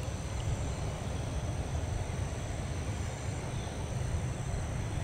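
Steady low rumble of a FedEx Airbus A300 freighter's jet engines on final approach, with a faint steady high insect drone behind it.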